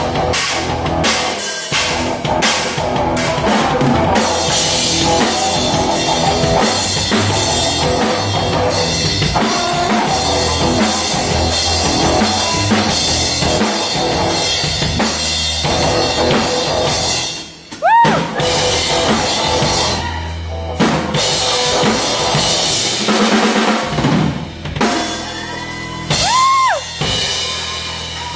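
Live band playing dub-style drum and bass, a full drum kit driving it with kick and snare under bass. About two-thirds of the way through the music drops out for a moment with a rising glide, and near the end the beat thins out under more up-and-down gliding tones.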